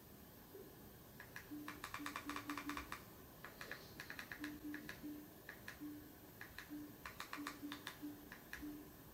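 Buttons on a projector's remote control clicking in quick runs of presses while stepping through an on-screen menu, with a short low blip along with each press.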